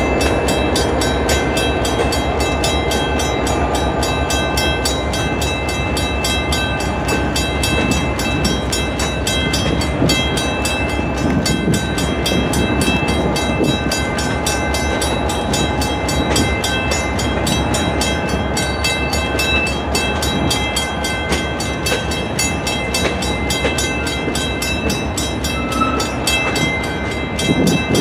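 Freight train's boxcars rolling past, a steady rumble and rattle of steel wheels on the rails with faint high ringing tones over it.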